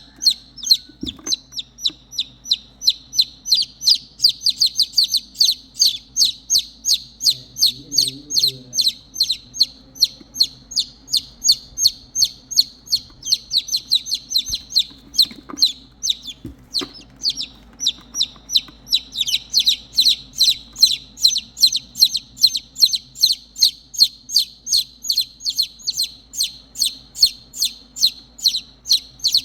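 Baby chicks peeping continuously in loud, high, short notes, two or three a second: the insistent distress calls of chicks left without their mother hen.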